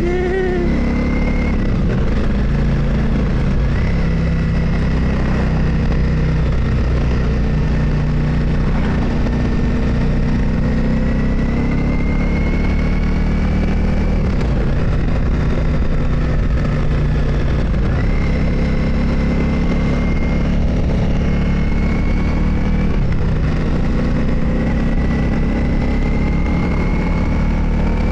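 Motorcycle engine running on the move, with a steady low drone and a whine that climbs slowly over several seconds, then drops back and climbs again, several times over.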